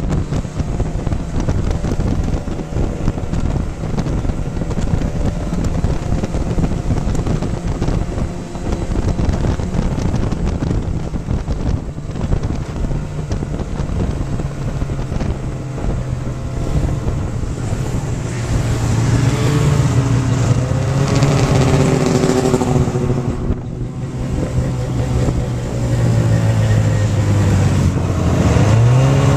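Snowmobile engine running under way, with wind buffeting the microphone; its pitch shifts with speed. Around twenty seconds in, the engines of several other snowmobiles pass by, and near the end the engine revs up with a rising pitch.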